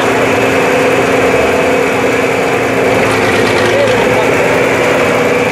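John Deere 4020 tractor's six-cylinder engine running steadily at a slow parade pace, an even drone with no revving, with faint crowd voices behind it.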